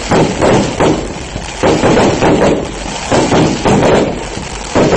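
Fireworks going off overhead: a rapid, irregular run of loud bangs and crackles, one after another.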